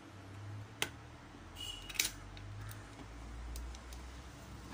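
Sharp small metallic clicks as a Core 2 Duo processor is fitted into an LGA775 motherboard socket and the socket's metal retention parts are pressed shut. The loudest click comes about two seconds in, just after a short scrape, with fainter ticks later, over a low steady hum.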